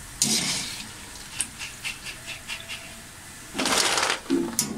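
Fried boondi being scooped out of hot oil with a perforated metal ladle and tipped onto a metal tray: hissing oil and rustling with a run of light clicks, about four a second, and a louder rustling burst of metal and boondi about three and a half seconds in.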